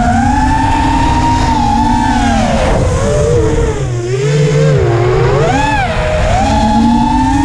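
FPV racing quadcopter's brushless motors whining, the pitch swinging up and down with the throttle; it dips low about four seconds in, then climbs back with a quick swoop.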